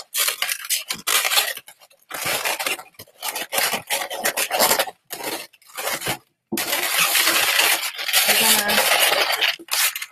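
Inflated 260 latex modelling balloons rubbing against each other and against the hands as they are twisted and pushed together, in irregular bursts with a brief pause about five seconds in.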